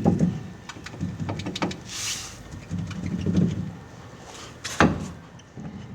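Peugeot 306 front stabilizer bar and drop link knocking and clicking as the bar is worked by hand, in irregular knocks with the loudest about five seconds in. The knocking comes from excessive play in the bar's worn bushings.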